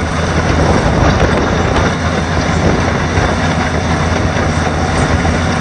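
Loud, steady mechanical rumble and clatter of heavy machinery running.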